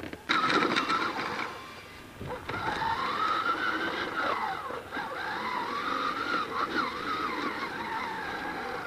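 Battery-powered children's ride-on toy Jeep driving over grass: its electric motor and gearbox whine, the pitch wavering slowly up and down as it goes. A brief clattering noise comes near the start.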